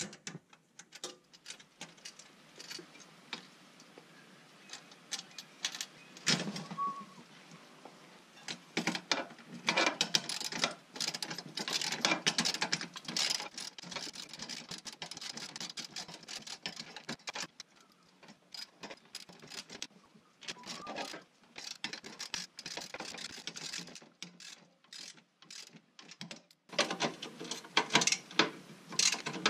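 Hand ratchet wrench clicking in quick runs while bolts are tightened on a steel step bracket, with clinks of metal tools and hardware between the runs.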